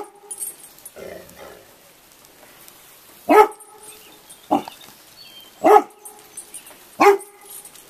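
Chocolate Labrador retriever barking four times, about a second apart, in fear of a pile of roofing materials.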